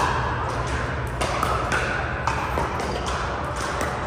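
Pickleball paddles striking plastic balls: a string of sharp pops and taps at irregular intervals, some with a brief hollow ring, over a steady low hum. The sharpest pop comes right at the start.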